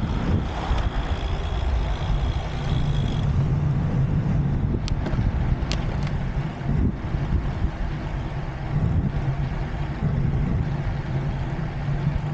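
Wind rushing over the microphone and road rumble while riding a bicycle on the road, loud and gusting, with a thin high whine for the first three seconds and a few faint clicks in the middle.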